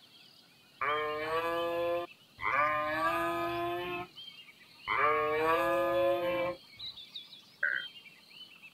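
Giraffe calling three times in a row, each call a long, even-pitched bleat of about one and a half seconds with short pauses between. Faint high chirps sound in the background, mostly after the calls.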